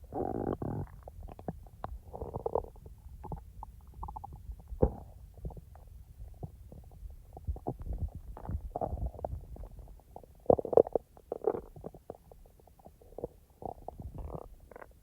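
Human stomach and intestines gurgling during digestion: an irregular string of bubbly gurgles and small pops. The loudest gurgles come at the very start and again about ten and a half seconds in.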